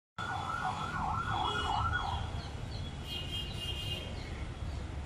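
A siren yelping rapidly up and down, about three swings a second, for the first two seconds over a steady low rumble of traffic, followed by a string of short high chirps.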